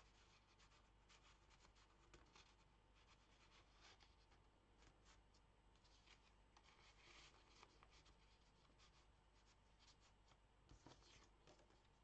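Faint rustling and scraping of cardstock and kraft paper being handled: tags and cards slid in and out of paper pockets, with small ticks and taps of paper edges.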